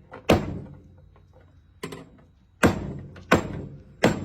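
Five hard, irregularly spaced knocks on a pressurized plumbing line, each a sharp thunk that dies away quickly. The line is being struck to try to make its joint leak, and the joint holds.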